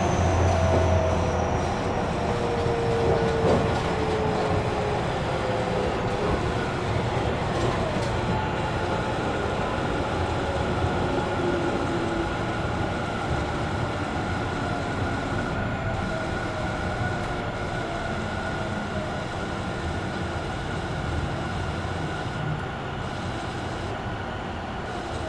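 Tobu 50000-series electric commuter train running, heard inside the car: steady wheel and track noise with a motor whine, whose pitch falls in the first few seconds and again about 8 seconds in, and a steady high tone from about 10 seconds on.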